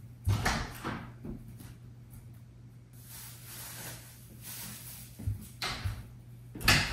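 Kitchen pantry door being opened and shut, with footsteps and a few knocks, and soft rustling from inside the pantry in the middle; the loudest knock comes near the end as the door swings closed. A low steady hum runs underneath.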